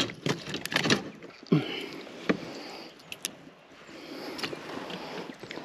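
Handling noises: irregular knocks, taps and scrapes of a rubber-mesh landing net and a caught bass against a plastic kayak's deck while the lure is worked free, with a cluster of sharp clicks in the first second and single knocks after.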